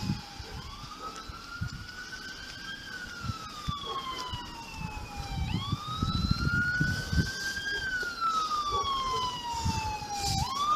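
An emergency vehicle's siren on a slow wail, rising and falling about every five seconds and growing louder as it approaches, with a low rumble underneath.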